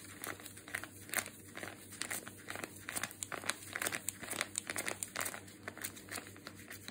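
Clear plastic grain spawn bag crinkling in quick, irregular crackles as a gloved hand rubs an alcohol swab around its injection port.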